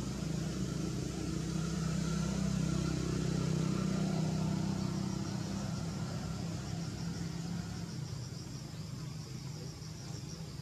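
A motor vehicle's engine running steadily and fading away over the second half. A high pulsing insect chirp comes in about halfway through.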